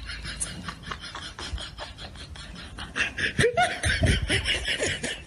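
People laughing, loud and hearty from a little past halfway through.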